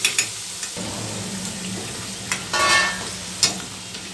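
Shankarpali pieces deep-frying in hot oil in a steel kadai, a steady sizzle, while a steel ladle clinks against the pan a few times and scrapes it once, midway.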